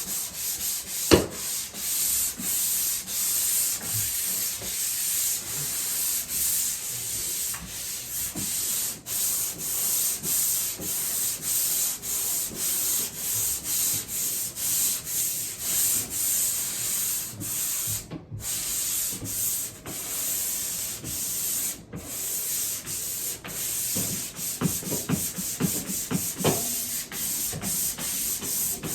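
Hand sanding drywall with fresh 220-grit sandpaper: a steady back-and-forth scratching, a stroke roughly every second, as the finish sanding smooths the surface. A sharp knock sounds about a second in, and the sanding breaks off briefly twice in the second half.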